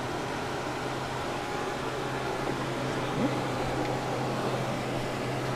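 Steady low hum and hiss of indoor room tone, with a faint, short rising sound about three seconds in.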